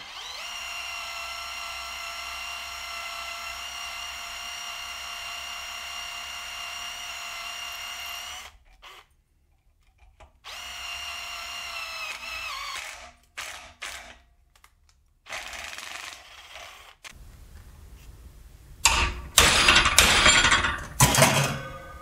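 Cordless drill motor running a gold-coated spiral tap into an aluminium plate: a steady whine for about eight seconds that stops, then a few shorter runs. Near the end, several loud sharp knocks.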